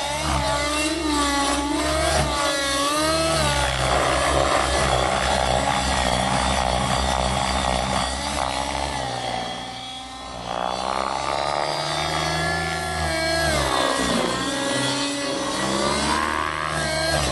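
OS 50 two-stroke glow engine and rotor blades of a Miniature Aircraft Fury 55 radio-control helicopter in aerobatic flight, the engine pitch rising and falling constantly as it flips and passes. The sound dips briefly about ten seconds in.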